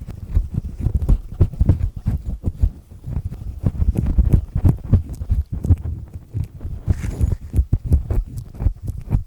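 Black triple-disc earpick scraping and grinding in an ear, many quick rough scratching strokes, deep and gritty.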